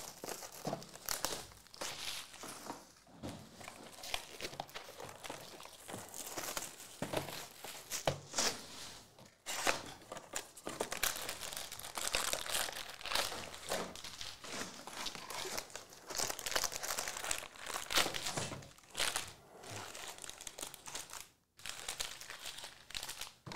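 Foil-wrapped baseball card packs and their cardboard hobby boxes being handled: irregular crinkling and rustling as the packs are pulled from the box and stacked, with two brief pauses.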